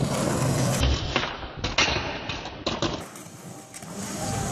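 Skateboard wheels rolling on concrete, with a few sharp knocks of the board between about one and three seconds in, the loudest about a second in.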